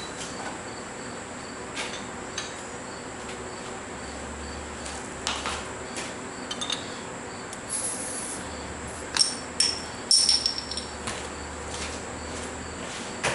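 Scattered, irregular light metal clinks and taps, a few of them ringing briefly, with the loudest cluster about nine to ten seconds in, over a steady background with a thin high trill.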